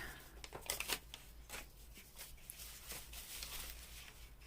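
Sheets of paper rustling softly as they are handled and leafed through, with a few brief crinkles.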